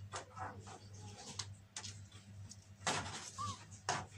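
Persian and Himalayan kittens scuffling and pouncing on a wooden floor: short, irregular scrabbling and thumping noises, the loudest about three and four seconds in, over a steady low hum.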